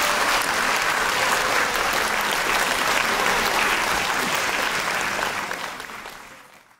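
Audience applauding steadily after a piano performance, the clapping fading away over the last second or so.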